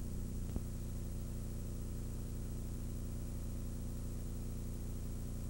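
Steady low hum with an even hiss over it, the background noise of an old analogue tape recording with no programme sound, and one faint click about half a second in.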